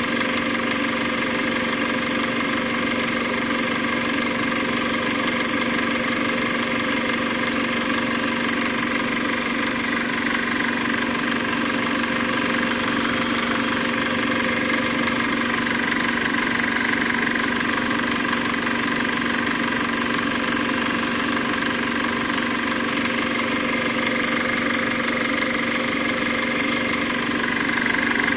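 A steady, unchanging mechanical hum, like a motor running, with a few constant tones and a noisy hiss behind them.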